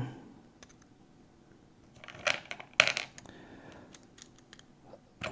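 Sharp metallic clicks and light rattles from a reassembled padlock being handled and tried with its key: two louder clicks about half a second apart, then a few fainter ones and one more near the end.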